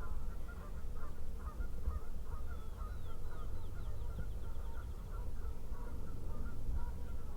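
Turkey yelping: a string of short, evenly repeated calls. A faint, fast songbird trill comes in about three seconds in.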